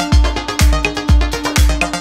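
Background music: a dance beat with a heavy kick drum on every beat, about two beats a second, over a held synth tone.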